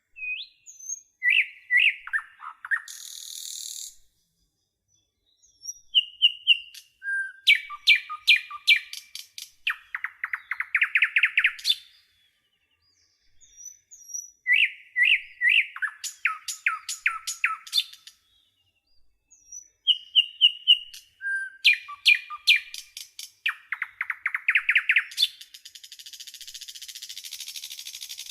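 Small songbird singing in bouts of quick high chirps, a rapid trill and buzzy notes. Near-identical phrases repeat three or four times, with silent gaps of one to two seconds between bouts and a hissy, buzzy note near the end.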